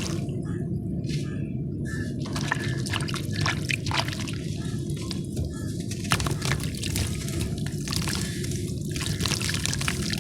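Dusty, chalk-like shapes dipped in water and crumbling apart, with irregular crackles and small drips and splashes over a steady low wash.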